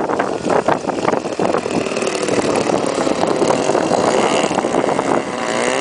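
Small engine running steadily, with gusts of wind on the microphone in the first second or so.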